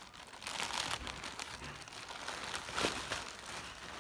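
Grey plastic mailer bag crinkling as it is pulled open by hand, with irregular rustles and a louder crinkle about three seconds in.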